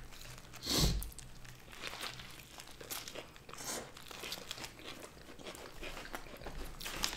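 Close-miked bites and chewing of hamburgers, with crunches and the paper wrappers crinkling; the loudest crunch comes about a second in.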